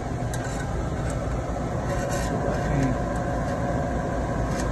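Fisher Scientific Isotemp 1016D refrigerated circulating water bath running with a steady low hum from its refrigeration unit and circulator, with a few light clicks.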